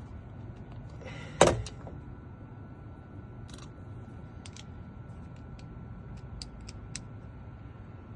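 One loud sharp clunk about a second and a half in, then a scattered series of light clicks, from small metal lock parts and tools being handled while a car door lock is reassembled.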